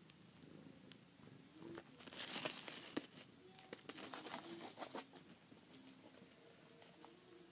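Rustling, crinkling and scratching as a playing kitten paws and scrabbles on carpet, loudest for a few seconds in the middle, with small clicks.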